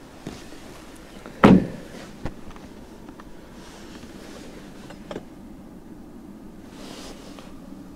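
A car door on a 2022 Hyundai Elantra shutting with one solid thump about a second and a half in, followed by a couple of lighter clicks.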